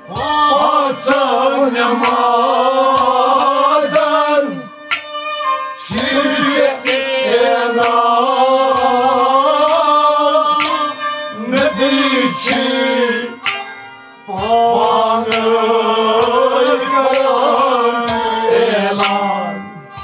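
Kashmiri Sufi song: a man singing long, wavering phrases with rabab accompaniment and drum strokes, in several phrases with short breaks between them.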